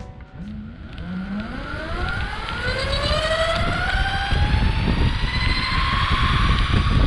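Meepo Hurricane electric longboard pulling away: the motors' whine climbs steadily in pitch as the board gathers speed, over a rising rumble of wheels on pavement and wind.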